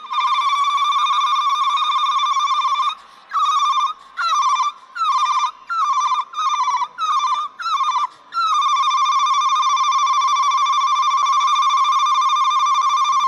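A woman ululating into a microphone: a high, rapidly trilling cry held for several seconds, then broken into a run of short bursts, then one long trill again.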